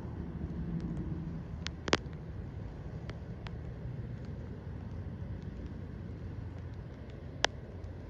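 Steady low outdoor rumble, with a few faint ticks and two sharp clicks, one about two seconds in and one near the end.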